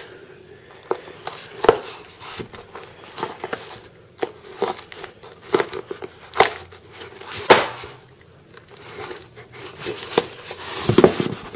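Packaging being pulled and torn open without a knife: irregular crinkling, tearing and sharp snaps throughout.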